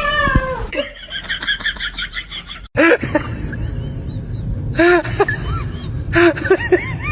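Cats meowing: a string of short meows, with a quick run of chirping calls about a second in.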